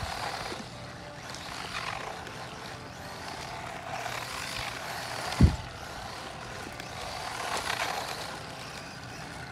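Eachine EAT10 1/18-scale brushless RC truck driving on asphalt, its motor whine and tyre noise swelling and fading several times as it runs. A single low thump about halfway through.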